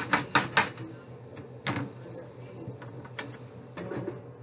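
A cooking utensil knocking against a frying pan of sautéing vegetables on the stove: four quick knocks in the first second, another just under two seconds in, then a few lighter taps, over a steady low hum.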